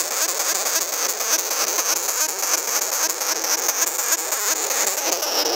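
Sugar glider crabbing: a loud, continuous, rapidly pulsing rasping buzz, the defensive warning call of a disturbed or frightened glider.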